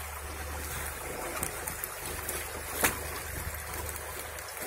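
A river runs steadily below, mixed with footsteps and the brushing of leaves, and there is one sharp knock about three seconds in.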